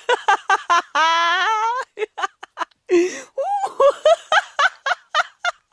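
A person laughing hard and high-pitched: quick giggling bursts, with one long drawn-out laugh about a second in.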